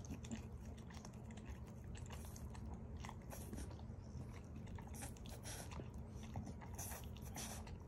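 A dog chewing, with faint irregular crunches, clicks and mouth smacks.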